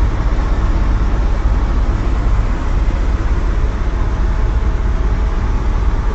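Airbus H125 (AS350 Écureuil) helicopter in flight, heard from inside the cockpit: the turbine and rotor run steadily and loudly, with a heavy low rumble from the rotor.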